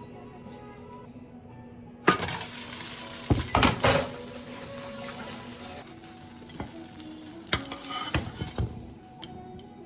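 Food sizzling in oil in a hot frying pan. The sizzle starts suddenly about two seconds in, and a cooking utensil clatters against the pan a few times while the food is stirred.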